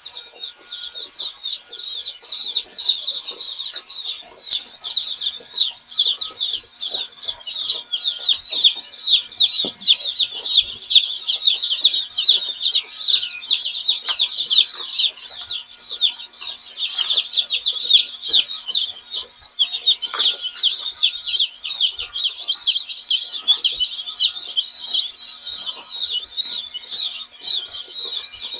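Many young chicks peeping together without a break, their high, short, falling chirps overlapping into a dense chorus.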